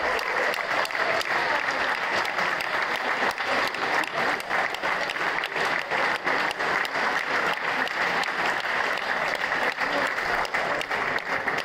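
Audience applauding, a steady continuous clapping.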